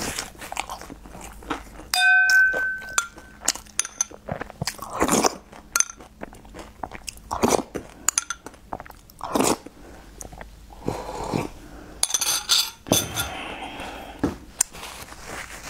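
Close-up eating sounds: chewing, biting and wet mouth noises from spooning food out of a small glass bowl. About two seconds in, the glass bowl gives a clear ringing clink, and short clicks of the spoon follow.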